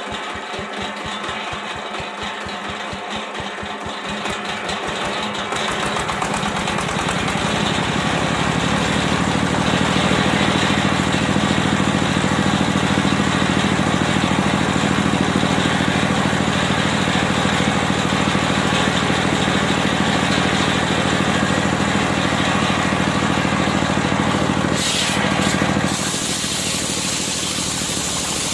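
Circular sawmill's engine ticking over with slow, separate firing beats, then speeding up over a few seconds to run steadily at working speed, with a brief dip near the end.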